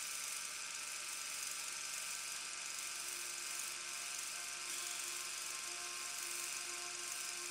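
Steady hiss with a faint, wavering hum: the running noise of an old film soundtrack, starting abruptly with the film.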